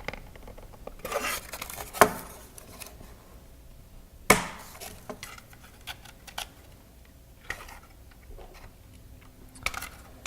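Small robot-kit parts (a motor, a wooden motor mount and its bolts) being handled and fitted together: irregular clicks and knocks, the two loudest about two and four seconds in.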